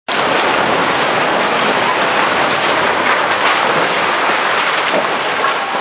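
Multi-storey brick building collapsing: masonry and rubble crashing down in a continuous dense clatter with many sharp cracks.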